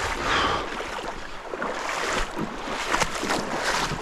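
Shallow water sloshing and splashing in irregular splashes, as it is stirred and disturbed.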